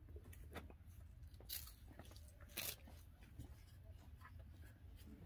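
Faint scuffs and scrapes of a climber's shoes and hands moving on a sandstone boulder: a few light clicks, then two short scrapes about a second and a half in and just before three seconds, the second the loudest, over a low steady rumble.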